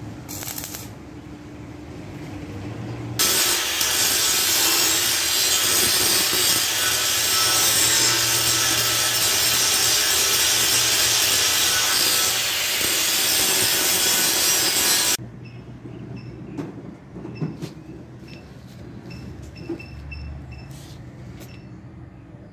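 A handheld electric power tool running under load on the steel railing: a loud, steady noise that starts suddenly about three seconds in and cuts off abruptly about twelve seconds later. Lighter clatter and a few clicks before and after it.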